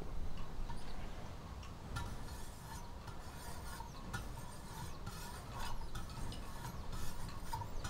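Fine 3000-grit stones of a Wicked Edge guided sharpener stroked along a cleaver's edge: repeated light scraping strokes of stone on steel. This is the fine finishing stage that polishes the bevel toward a razor edge.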